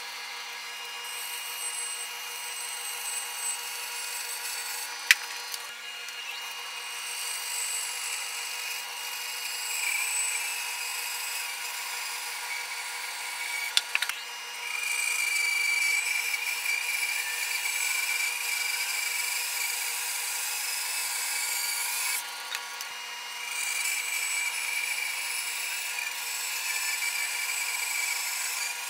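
Bandsaw running with its blade cutting through a bigleaf maple log fed on a sled jig, milling boards off the log. There are a couple of sharp knocks, and the cut gets louder about halfway through, eases briefly, then carries on.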